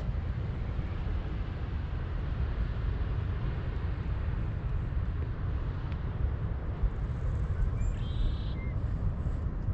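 Wind buffeting the microphone as a steady low rumble, with a short bird call about eight seconds in.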